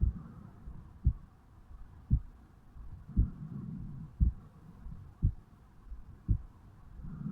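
A resting adult heartbeat heard over the mitral valve area of the chest, a short low thump about once a second, near 60 beats a minute.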